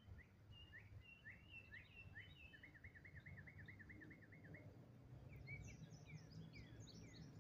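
Faint songbirds singing: scattered chirps, then a quick even trill of about a dozen repeated notes a few seconds in, and a run of higher, falling chirps near the end, over a low steady outdoor rumble.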